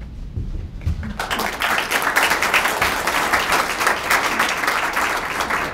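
Audience applauding after a poetry recitation, many hands clapping steadily, starting about a second in after a brief hush.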